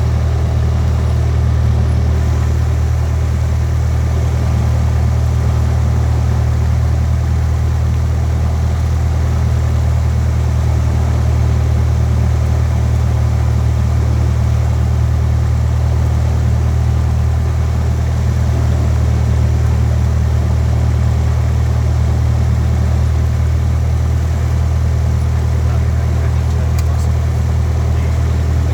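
Light aircraft's engine and propeller running at a steady, deep drone, with no change in pitch or loudness.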